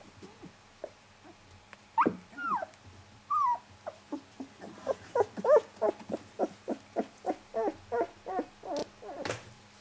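Young puppy whimpering: a few falling whines, then from about four seconds in a fast run of short squeaks, about three a second.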